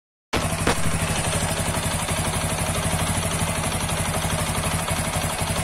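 TVS Apache RTR 160 4V's single-cylinder engine idling, with a steady rhythmic knocking from inside the engine. The owner suspects a fault but does not know whether it comes from the crankshaft, the tappets, the timing chain, the piston or the connecting rod.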